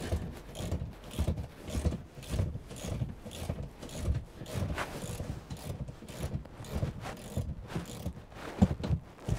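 Spanner working a 13 mm nut off the seat-base mounting under a van's passenger seat: a run of metallic clicks and light knocks, about three a second, with one louder knock near the end.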